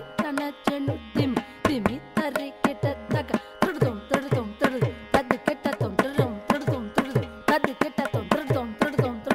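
Background music: an instrumental interlude in Carnatic style, with a quick, steady run of pitched drum strokes over held melody notes, without singing.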